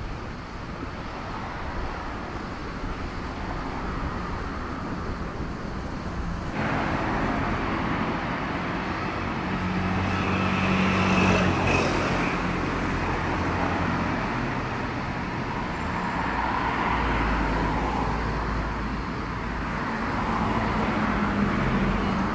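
Street traffic ambience: cars running past on the road, their engine noise swelling and fading as they go by. The traffic noise gets suddenly louder about six seconds in.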